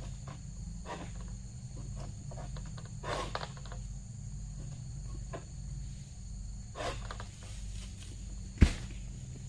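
Steady high insect drone over a low rumble, with scattered rustles and clicks and one sharp knock near the end.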